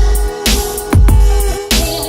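Background electronic music with a heavy, steady beat.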